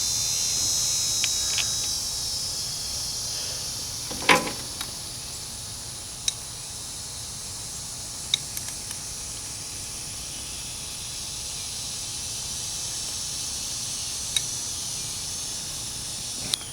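Steady high chirring of insects, a little stronger in the first couple of seconds, with a few sharp clicks of metal work on the tank, the loudest about four seconds in.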